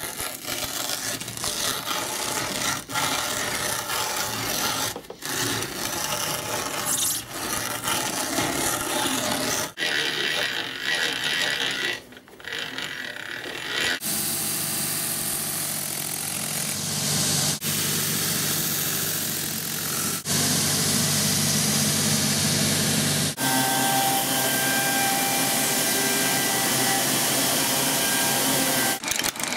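Cobbler's sole-finishing machine working a new leather sole: the leather scrapes and rubs against spinning sanding wheels and an edge cutter over a steady motor hum. The sound changes abruptly about halfway through and again about three quarters in.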